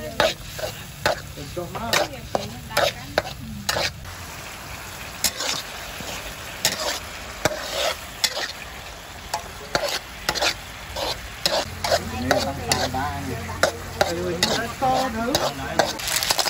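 Metal spatula scraping and clinking against a steel wok, with many sharp strokes, while a tamarind sauce bubbles and sizzles in it. Just before the end, cockle shells start clattering into the pan.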